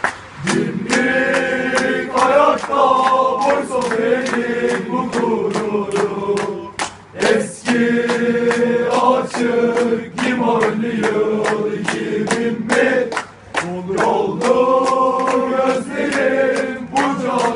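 A crowd of male voices singing a slow chant together in unison, line by line with brief breaks between phrases, over sharp beats struck a few times a second.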